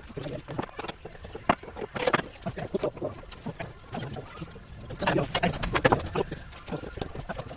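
Irregular clicks and knocks of hand tools at work on a motorcycle, with a denser run about five seconds in.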